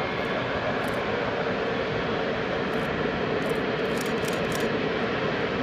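Boeing 777F's twin GE90-110B1L turbofan engines running, a steady jet drone with an even hum through it.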